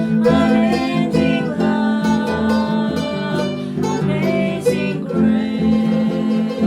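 Music: a continuous run of pitched notes with some strummed chords.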